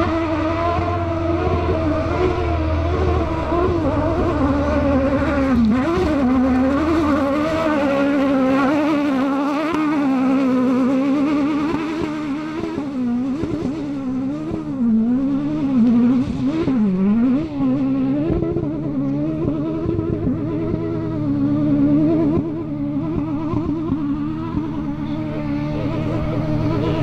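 Off-road rally car's high-revving engine labouring up a steep slope. Its pitch rises and falls again and again, about once a second, as the throttle is worked.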